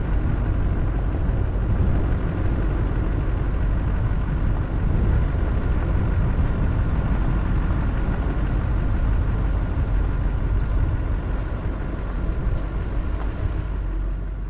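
A vehicle driving on a paved road, its engine and tyres making a steady low rumble.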